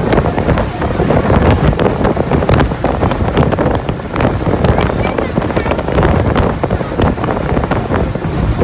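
Wind blasting the microphone over the steady running of a small motorboat under way across choppy water, with frequent short slaps and splashes of water against the hull.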